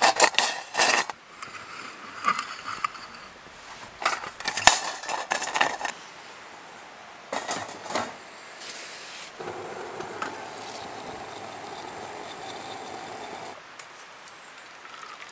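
Metal clattering and scraping in several bursts as a Trangia stove's brass alcohol burner, windscreen and pot with lid are handled and set in place. After about nine seconds, a steady pouring sound for about four seconds as water is poured from the pot into a metal bowl.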